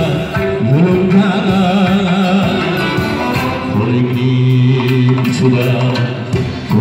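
Live Uzbek band music: long held melody notes over strokes of a doira frame drum, with a man singing.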